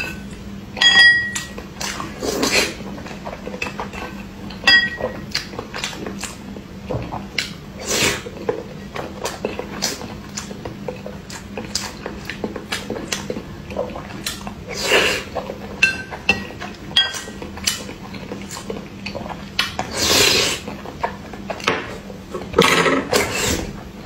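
A metal spoon clinking and scraping against a ceramic bowl, some strikes ringing briefly, as boiled eggs are scooped out of liquid. Between the clinks come close-up eating and slurping sounds.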